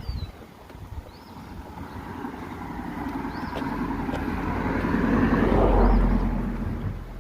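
A vehicle passing close by on the road bridge: tyre and engine noise builds slowly to a peak near the end, then fades. A bird chirps short repeated notes over it.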